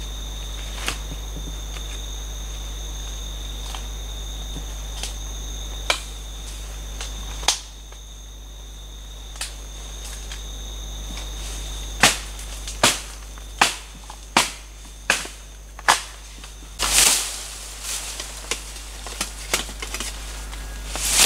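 A machete chopping bamboo stems: about seven sharp strikes, a little under a second apart, in the second half, followed by a burst of rustling leaves and a few lighter knocks. Before the chopping, a steady high insect tone.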